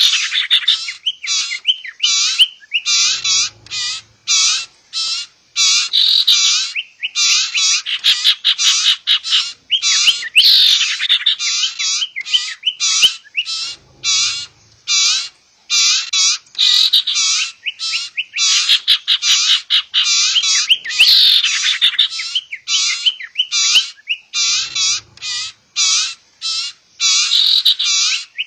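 Lure recording of sirtu birds, adult calls mixed with the calls of young birds: a fast, dense stream of short, high chirps and twitters that repeats as a loop about every ten seconds, with a faint low thud at each repeat.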